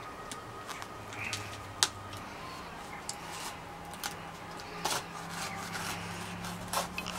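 Kitchen knife cutting into a durian's spiky husk and the rind being pried apart, a run of scrapes and sharp cracks, the sharpest about two seconds in.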